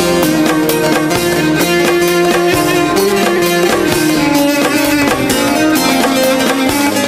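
Instrumental break of a Turkish pop song: plucked string instruments play a melody over a steady rhythmic backing.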